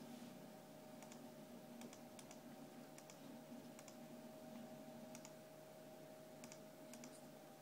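Near silence: a faint steady hum with scattered light clicks at irregular intervals.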